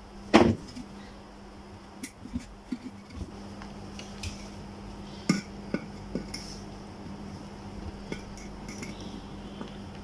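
Metal and plastic kettle parts being handled on a workbench: one sharp knock about half a second in, then scattered lighter clicks and taps, over a steady low hum.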